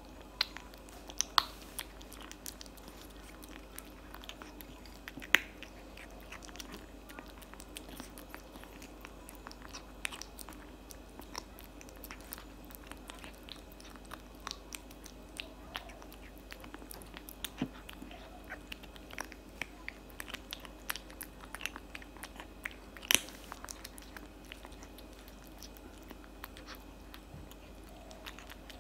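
Tabby kitten chewing and crunching cat food, dry kibble mixed with wet chunks, in a steady run of irregular sharp clicks and crunches. A few louder crunches stand out.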